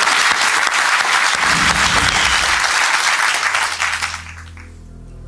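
Studio audience and contestants applauding, the clapping fading away about four seconds in as low steady background music comes in underneath.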